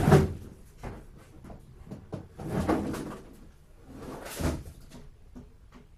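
Handling and knocking noises from work in a small room: a sharp knock right at the start, another just under a second in, and two longer scraping thuds around three and four and a half seconds in, then a few light ticks.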